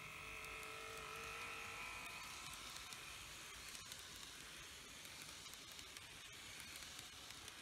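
Small electric motor of a TOMIX N-gauge E3-series Komachi model train whining as the train runs past on the track. The whine holds several steady tones, is loudest in the first two seconds and then fades, with faint clicks from the wheels on the rails.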